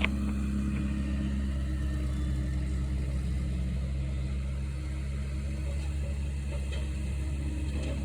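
An engine running steadily at idle, an even low hum with no change in pitch.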